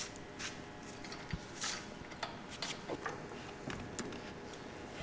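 Light, irregular metal clicks and scrapes of lug nuts being threaded onto wheel studs and turned with a lug wrench.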